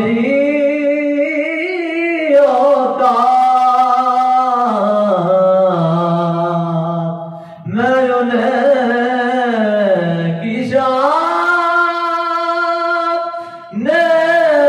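A man singing a naat, an Urdu devotional song in praise of the Prophet, solo and unaccompanied, in long held notes that waver up and down. He breaks off briefly for breath about eight seconds in and again near the end.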